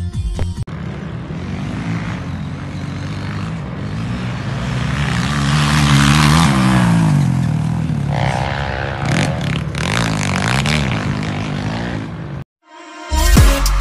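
Dirt bike engines revving as riders pass, the pitch rising and falling, loudest about six seconds in. The engine sound cuts off abruptly near the end and music begins.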